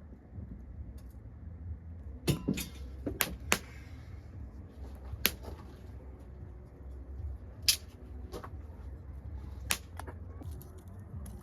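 A few sharp metallic clinks, irregularly spaced (two quick pairs, then single strikes every two seconds or so): a hammer striking metal at the anvil. A low steady hum runs underneath.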